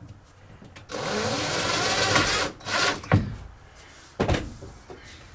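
A small handheld power drill or driver runs for about a second and a half, then gives a shorter burst, likely fastening a holder for the LED light strip. A couple of sharp knocks follow.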